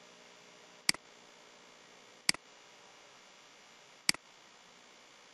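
Three sharp computer mouse clicks, a second or two apart, as layers are picked from a dropdown list, over a faint steady hum.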